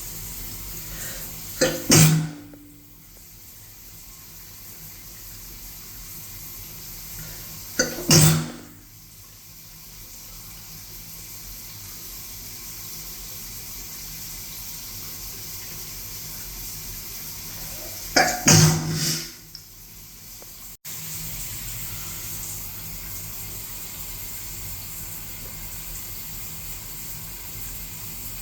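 A person sneezing three times, about two, eight and eighteen seconds in, the last a double sneeze, over the steady hiss of shower water running.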